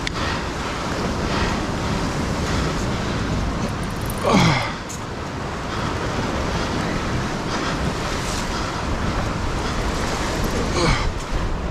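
Ocean swell washing against the base of a rock cliff, a steady rushing noise with wind on the microphone. A brief louder sweep falling in pitch about four seconds in, and a weaker one near the end.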